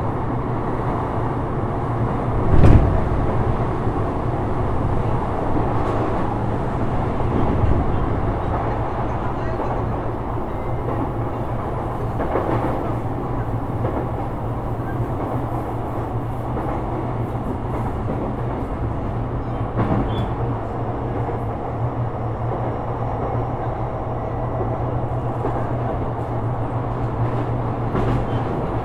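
Sotetsu 12000 series electric train with Mitsubishi IGBT-VVVF control running at speed, heard from inside the car: a steady rumble of wheels on rail with a constant low hum. A loud thump comes nearly three seconds in, and a few lighter knocks follow over the track.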